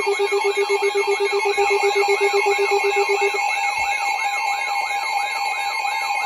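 Weather alert radios sounding their alarms together. A warbling siren tone sweeps up and down about three times a second over steady alert tones, and a rapid low beeping stops about three and a half seconds in. One of them is a RadioShack 12-382 weather radio activating a second time for the same alert.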